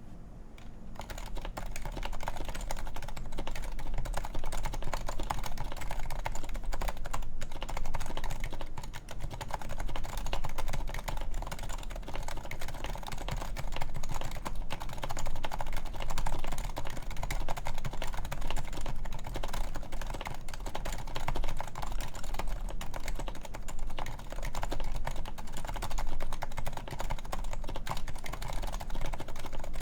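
Continuous typing on a Topre Realforce 104UB keyboard with 45 g electrocapacitive rubber-dome switches and silenced sliders: a dense, irregular run of keystrokes at an even pace.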